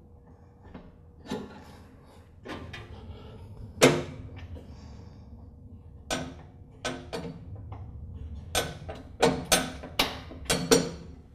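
Sharp metallic clicks and clinks, about a dozen scattered irregularly, the loudest about four seconds in, as a PTO cable end and its hairpin clip are fitted by hand to a bracket on a lawn tractor's steel mower deck.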